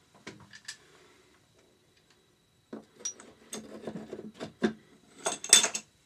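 Metal engine parts knocking and clinking as the rocker cover of a Yamaha XT600 engine is worked free and lifted off: a few light clicks, a pause, then a run of clattering knocks with the loudest scrape near the end.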